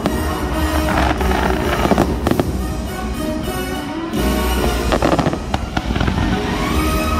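Aerial fireworks bursting and crackling, with the show's music soundtrack playing alongside. The bangs ease off about halfway through, then a fresh volley starts.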